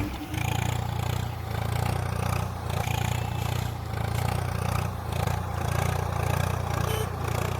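A small engine running steadily with some clatter, its level swelling and dipping every second or so.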